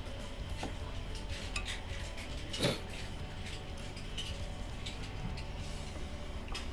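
Spoon clinking and scraping against ceramic bowls as fried rice is scooped and soup is stirred, with one louder knock about two and a half seconds in.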